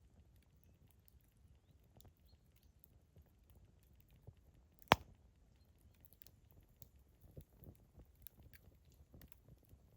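Wood campfire burning: a faint low rumble of flames with scattered small crackles, one loud sharp pop about five seconds in, and a livelier run of crackles near the end.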